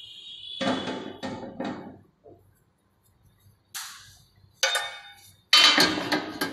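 Paintbrush sweeping collected cotton trash off a trash analyser's tray into a small steel bowl: a few separate short brushing and scraping strokes, the last one the loudest.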